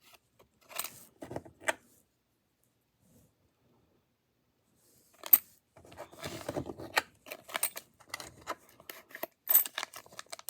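Small silver dimes clicking and clattering against each other as they are handled and dropped: a few clinks, a pause, one sharp click about five seconds in, then a stretch of busier rattling and clinking.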